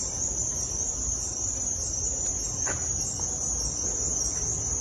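Steady high-pitched chirring of insects, over a low rumble.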